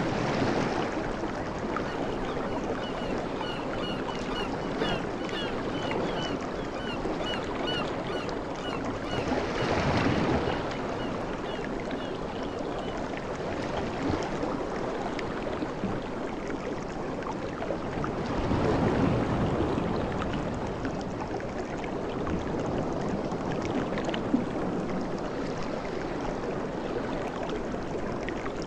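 Sea waves breaking and washing up a beach, the surf swelling about every nine or ten seconds. A faint high chirp repeats about twice a second through the first half.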